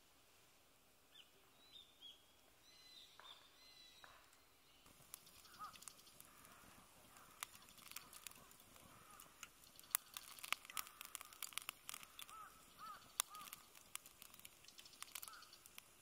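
Wood campfire crackling, with many sharp pops and snaps starting about five seconds in. A few short bird chirps are heard before the crackling.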